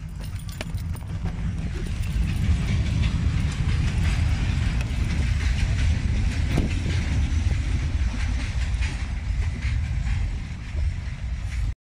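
Steady low rumble of a vehicle in motion, with scattered rattling clicks over it.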